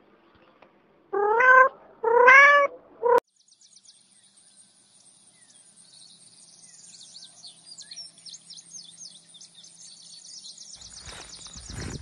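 A cat meowing three times, each meow rising and then falling, with the third cut off short about three seconds in. After that only faint, fast, high-pitched chirping remains.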